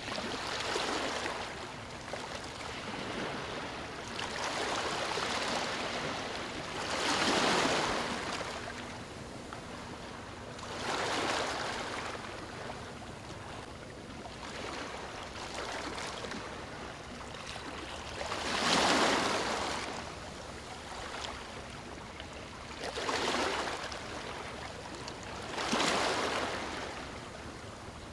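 Ocean waves breaking and washing up on a beach, a swell of surf every three to four seconds over a steady hiss of water.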